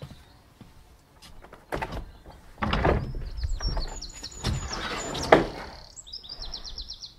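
Glass-panelled studio door being worked open, with rattling, scraping and a sharp knock about five seconds in. Small birds chirp and give a quick trill in the background near the end.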